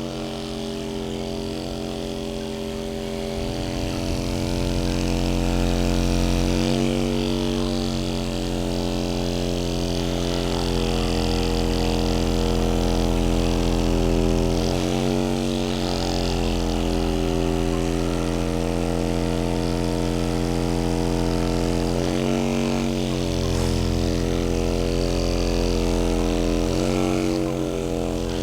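Electric motor of a motorized spinal decompression table running steadily with a hum, its pitch rising and falling back briefly every several seconds as the table cycles.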